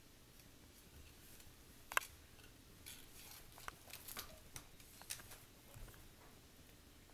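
Faint clicks and scratches of a cat's claws on a woven rush chair seat, with one sharp click about two seconds in, then a soft thump near the end as the cat drops down onto the rug.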